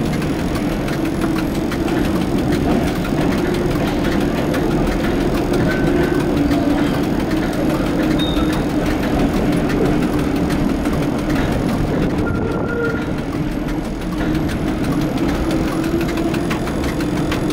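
1960 Bern standard streetcar running on its tracks, heard from the cab: a steady hum from the motors and gearing with the rattle of the old car body. A few very short high squeaks come through, about six, eight and twelve seconds in.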